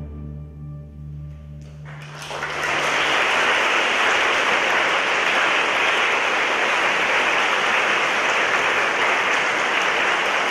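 The last low notes of a Chinese orchestra fade out, then audience applause breaks out about two seconds in and keeps going steadily.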